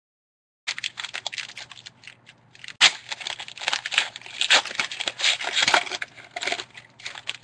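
Trading-card pack wrappers crinkling and tearing, with cards clicking against each other as they are handled. The noise starts suddenly less than a second in and has one sharp snap about three seconds in.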